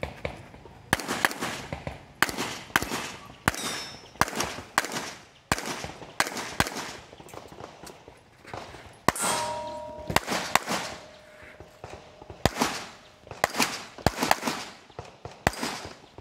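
Pistol shots fired in quick strings during an IPSC course of fire, about two dozen in all. There is a pause of about two seconds near the middle, and each shot rings on briefly.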